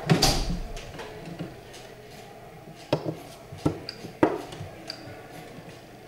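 Wooden chess pieces being set down and moved on a wooden board during a blitz game. There is a clatter at the start, then a few sharp knocks about three to four seconds in.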